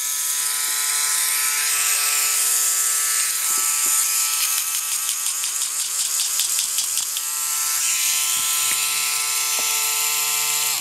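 LEGO Power Functions L motor running freely off its battery box: a steady high electric whine. The pitch wavers for a few seconds midway, and the whine cuts off abruptly at the end.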